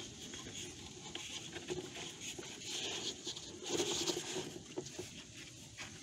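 Scraping and rustling of a new pleated cabin air filter being slid into the BMW X5 E53's plastic filter housing, its frame rubbing along the plastic, with a few light clicks. The scraping is loudest a little past the middle.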